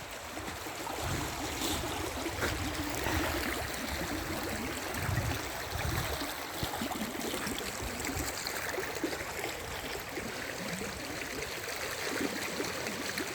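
Running water flowing steadily, like a rain-swollen stream, with some low rumbling in the first half.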